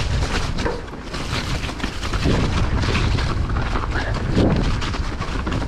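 Mountain bike riding down a muddy, snow-dusted trail: tyres rolling and squelching through mud, the bike rattling and knocking over bumps, with wind buffeting the microphone.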